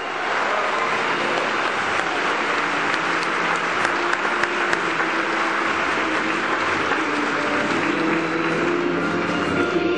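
Theatre audience applauding at a curtain call. From about halfway in, the pit orchestra's music starts to come up underneath the clapping.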